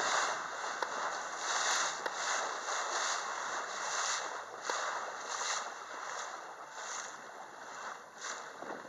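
Water rushing and splashing along the bow of a moving boat as it cuts through chop, with wind buffeting the microphone; the rush swells and eases every second or so.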